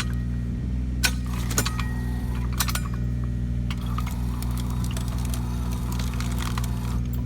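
Takeuchi TB219 mini excavator's diesel engine running steadily while its hydraulic auger drive turns a cone splitter into a log. Sharp cracks and clinks come about a second in, at about one and a half seconds and at about two and a half seconds, and a faint whine holds from about four seconds in until near the end.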